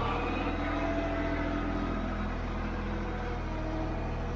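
Compact tractor's engine idling steadily.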